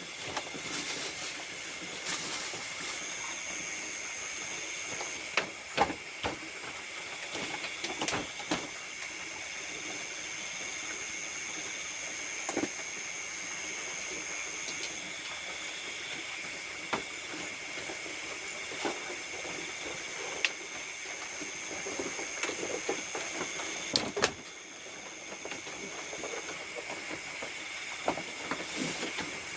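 Rice-field insects at night calling in a steady chorus of several high, unbroken tones. A still higher trill joins in and drops out for a few seconds at a time. Scattered short clicks and knocks sound over it.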